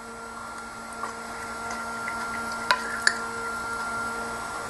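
A plastic spoon scooping tofu in a ceramic bowl, with two light clicks against the bowl a little past halfway, over a steady hum.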